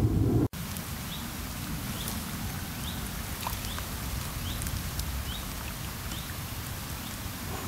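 A low rumble that cuts off abruptly half a second in, then light rain pattering steadily on the river and vegetation, with a bird giving a short rising chirp about once a second.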